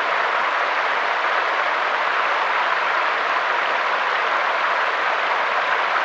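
Mountain stream flowing over rocks, a steady, unbroken rush of water.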